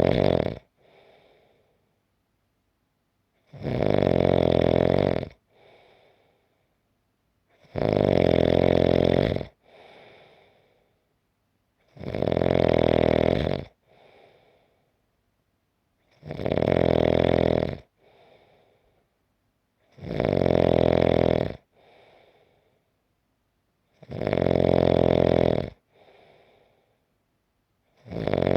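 A person snoring in a slow, even rhythm: a loud snore about every four seconds, each lasting one and a half to two seconds and followed by a short, faint breath out. About seven full snores, with the tail of one more at the very start.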